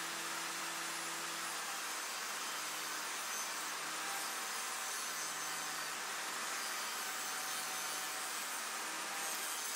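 Table saw running steadily while an OSB board is fed through the blade in a long rip cut, a continuous whirring with the rush of the cut.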